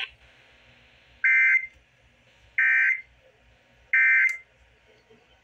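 Emergency Alert System SAME data bursts from a weather radio: three short digital buzzes about a second and a half apart. This is the end-of-message code that closes a warning.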